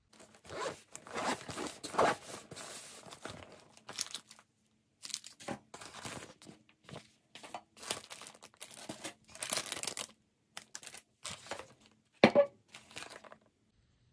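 A soft cooler bag being unzipped, and food in plastic zip-top bags rustling and crinkling as it is lifted out and set down, with one sharp clack about twelve seconds in.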